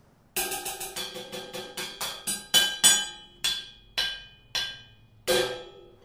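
A cymbal held in the hand and struck with a drumstick across all its zones in a run of about twenty short, staccato hits. The grip chokes each hit so it dies away quickly, with some of the high ringing of the cymbal's edge. The hits come quickly at first and spread out toward the end.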